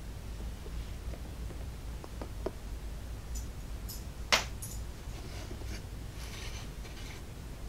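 Hobby knife cutting through the small uncut tabs of a laser-cut wood kit to free pieces from the carrier board: faint scraping and small clicks, with one sharp click a little over four seconds in.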